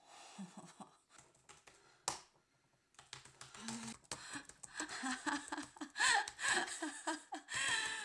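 Typing on a keyboard, irregular key clicks with one sharper click about two seconds in. In the second half a woman's voice makes short low vocal sounds among the keystrokes.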